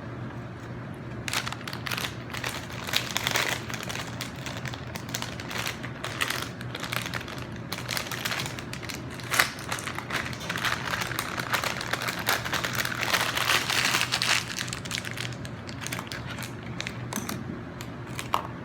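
Dense, irregular crinkling and crunching close to the microphone as a crisp lettuce salad is handled and eaten, busiest in the middle stretch, with one sharper crack about halfway through, over a steady low hum.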